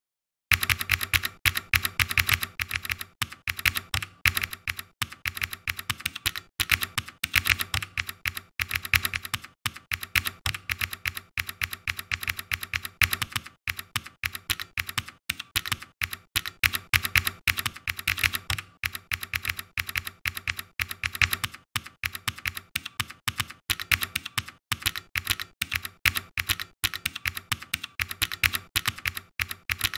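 Typing on a computer keyboard: rapid, continuous keystrokes that start about half a second in.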